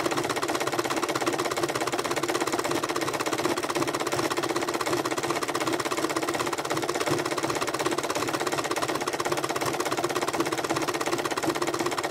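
Electric sewing machine running steadily at speed, its needle stitching through coiled fabric-wrapped cord in a fast, even run of stitches.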